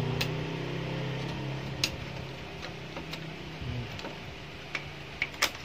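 Scattered light clicks and taps of plastic and metal parts being handled while the drive motor is pulled out of a laser printer. A low hum fades away over the first couple of seconds.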